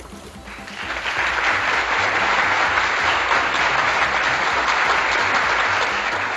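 Creek water running over rocks, a loud steady rushing that swells in about a second in and fades out near the end.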